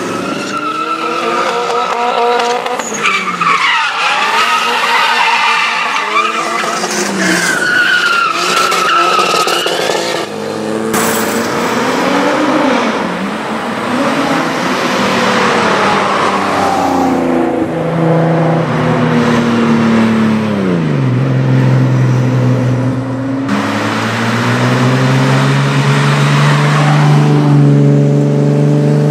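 Tuned Nissan Skyline R33 GTS-T's turbocharged straight-six across a few cut clips. The tyres squeal in the first part, then the engine revs up and down as the car accelerates and lifts.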